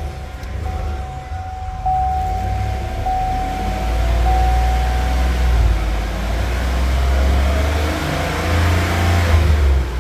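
A 2015 Cadillac Escalade's 6.2-litre V8 running steadily, its cylinder 8 misfire now cured. A thin steady whine sounds over it for the first five seconds or so.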